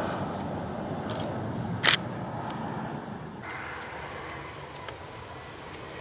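Steady rumbling hiss of a distant airliner on final approach, mixed with wind on the microphone, with a single sharp click about two seconds in. The noise drops and turns thinner about three and a half seconds in.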